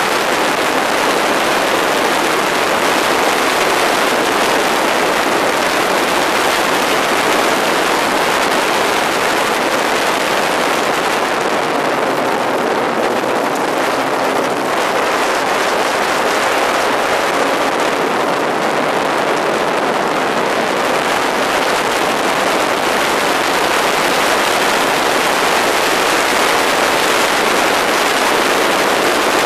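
Ariel Atom II open-cockpit sports car driven hard around a race track, heard from an onboard camera: a steady rush of wind over the microphone mixed with engine and tyre noise. The rush eases a little twice around the middle.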